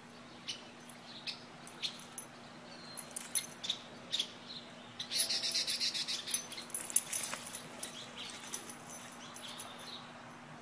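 Dry leaf litter crunching and crackling underfoot in scattered light crackles, with a denser stretch of crunching starting about five seconds in and lasting a couple of seconds.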